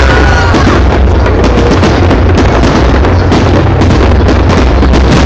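A loud fireworks barrage: a dense, unbroken run of bangs and crackles over a deep rumble, with a few whistling shells near the start.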